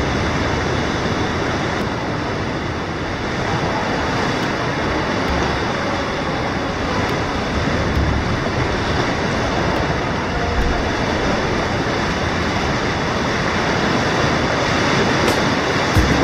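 Sea swell surging and washing through a sea cave: a steady rushing roar of water echoing off the rock, with a few deeper thuds around the middle.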